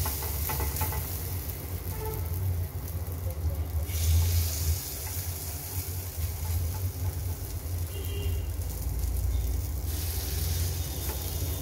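Spoonfuls of sprouted green moong batter sizzling as they drop into hot oil in the cups of an appe (paniyaram) pan, with a spoon ticking against the pan. The sizzle eases in the middle and picks up again near the end, over a steady low rumble.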